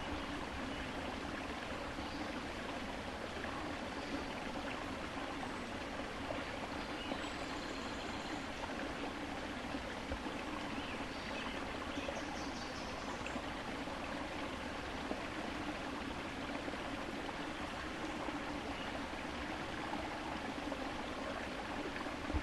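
Steady sound of running water rushing and splashing, unchanging throughout.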